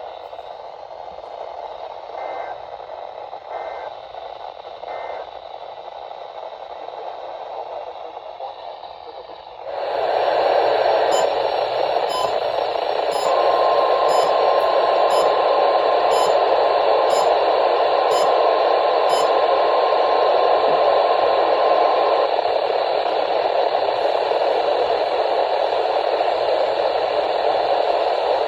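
NOAA weather radio receiver hissing with static. About ten seconds in the static suddenly gets louder, and a steady high tone sounds through it for about nine seconds in the middle.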